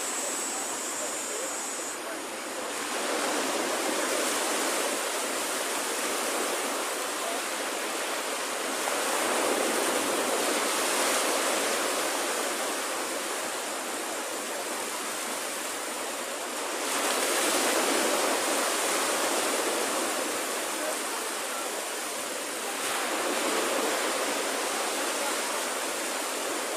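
Low waves breaking on a sandy beach: a steady rush of surf that swells as each wave comes in, about every seven seconds.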